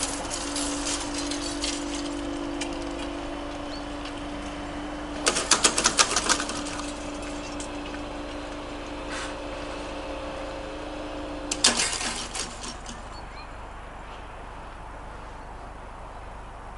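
Railway level crossing's warning tone sounding steadily while the barriers lower, with a rapid rattling clatter about a third of the way in and again about two-thirds in as the barrier booms with their hanging grilles come down and settle. The tone stops just after the second clatter, once the barriers are closed.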